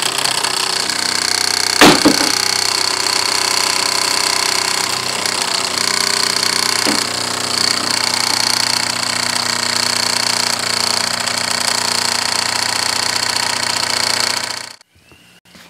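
Wilesco D6 model steam engine, a single-acting oscillating-cylinder engine, running fast with a steady rapid mechanical clatter from its piston and flywheel. A single sharp knock about two seconds in; the sound drops away suddenly near the end.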